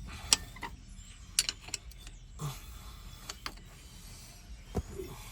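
Scattered metal clicks and knocks of a pry tool working an A/C compressor's clutch pulley off its shaft, with a sharper knock at the end.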